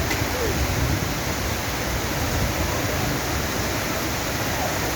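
Heavy rain and rushing floodwater, a steady even hiss.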